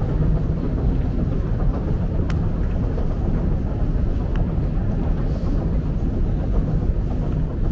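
Long metro escalator running: a steady low rumble with a few faint clicks.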